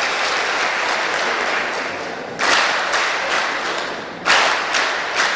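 Applause from the deputies in a parliamentary chamber. It dies down, then swells again in two fresh bursts about two and a half and four and a half seconds in.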